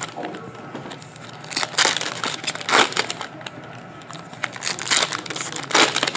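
Foil trading-card pack wrappers crinkling as packs are handled and opened by hand, in several short bursts with quieter rustling between.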